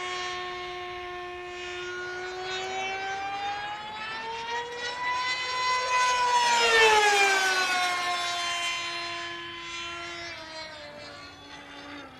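High-revving engine of an RC delta-wing model aircraft, a piped engine that leaves a smoke trail, running as a steady whine in flight. Its pitch climbs over a few seconds, then drops away as it gets loudest about seven seconds in, and it fades, lower and quieter, toward the end.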